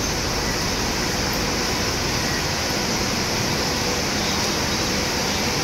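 Steady rushing rumble of a passenger train rolling into a station, heard from aboard the coach, with a faint steady hum.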